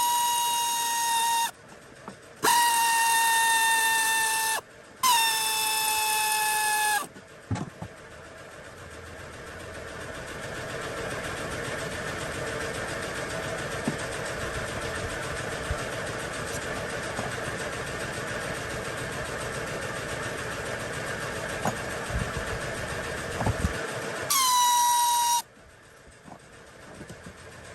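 Power tool motor running the lower intake manifold bolts out in four bursts of a steady high whine, each dropping slightly in pitch as the trigger is let go. Between the third and fourth burst is a long stretch of steady noisy hum with a few light clicks.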